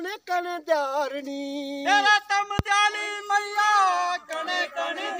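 A voice singing a Dogri devotional bhajan unaccompanied, holding long notes that slide from one pitch to the next. There is a single sharp click about halfway through.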